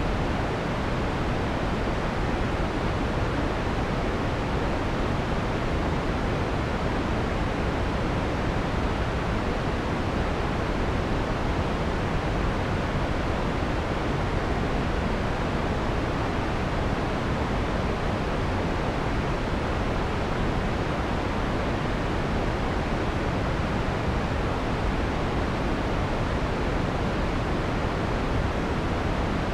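Steady electronically generated white noise with the harsh high frequencies filtered out, giving an even, soft hiss weighted toward the low end. It does not change in level or character.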